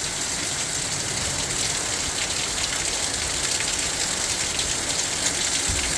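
Heavy downpour of rain, a loud, steady, dense hiss.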